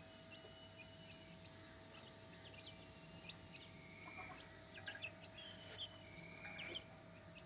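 A flock of young Ayam Cemani chickens cheeping faintly in short, high notes, with a run of sharp pecking clicks in the second half.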